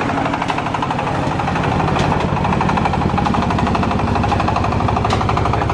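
A small engine running with a fast, even chugging, plus a few sharp clicks.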